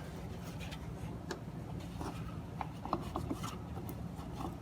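Rubbing and scattered small clicks of a greasy turntable part being wiped and handled to clean off old grease, over a low steady hum.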